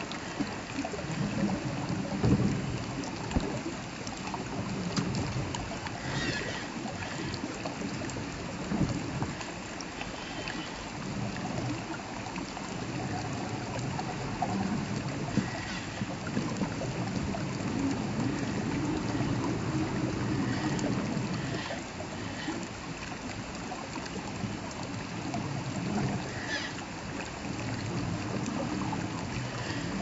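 Shallow stream trickling over rocks, with the electric motor and gears of an RGT 86100 RC rock crawler whirring in uneven spells as it crawls over the rocks.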